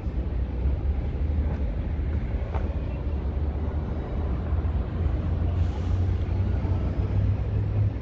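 City street ambience: a steady low rumble with vehicle traffic passing.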